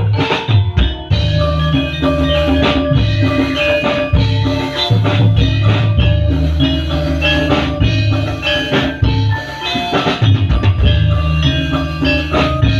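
Live Javanese kuda lumping ensemble playing: a bronze saron metallophone struck with a mallet in quick runs of notes, with kendang hand drums and a drum kit hitting over deep, held bass notes from a keyboard.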